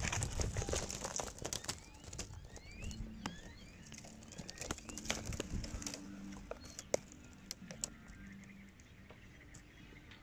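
Faint outdoor ambience: a few short rising bird chirps in the first few seconds, over a low steady hum and scattered small clicks.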